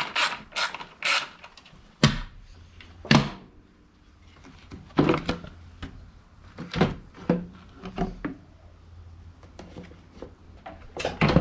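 Hand ratchet clicking in quick even strokes as the airbox fasteners are undone, then scattered hollow plastic knocks and clunks as the airbox lid is lifted off and the air filter pulled out.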